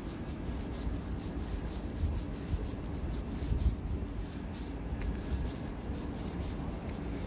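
Steady low rumble of a large railway station platform's ambience, with faint light scuffing and a brief louder knock a little past halfway.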